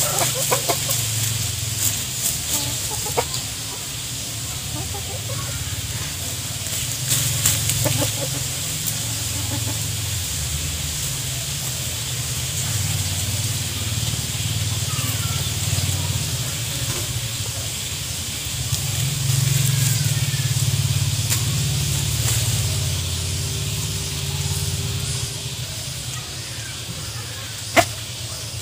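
Chickens foraging in dry leaf litter: scattered rustling and scratching in the leaves, mostly in the first few seconds, and a few soft clucks, over a steady low rumble. One sharp click near the end.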